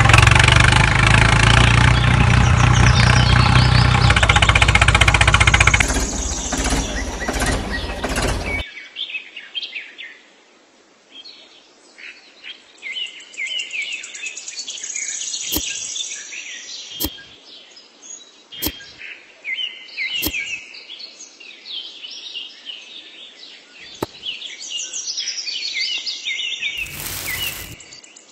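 Tractor engine running loudly for about six seconds, then fading out. After that, birds chirping steadily, with a few sharp clicks and a short rush of sand being poured near the end.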